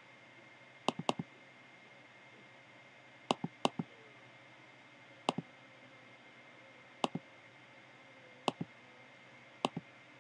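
Short, sharp clicks of a computer pointer button, in pairs and small clusters every second or two, over a faint steady high whine.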